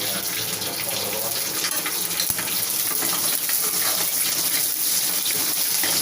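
Garlic and slit green chillies sizzling in hot sesame oil with the tempering spices: a steady hiss with small crackles as they sauté.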